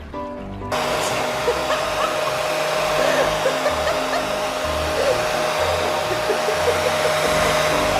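An air-blowing motor, like a dryer or blower, switches on abruptly under a second in and runs steadily with a loud rushing hiss and one steady whine.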